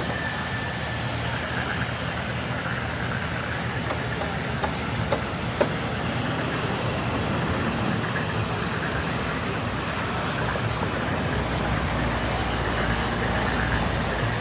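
Band sawmill running steadily as its blade cuts through a timber board, with a few sharp knocks about five seconds in and a deeper hum joining near the end.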